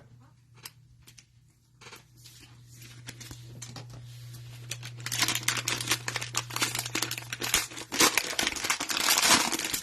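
Foil wrapper of a trading-card hanger pack crinkling and tearing as it is opened, faint at first and much louder and denser from about halfway through.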